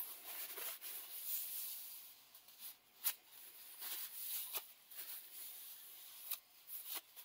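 Paper towel rubbing and wiping along a wooden tool handle, clearing excess wood glue from a glued split, with a few faint clicks.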